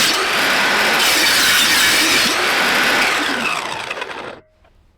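Electric power saw ripping a narrow strip from an acacia board: a loud, even cutting noise that cuts off suddenly near the end.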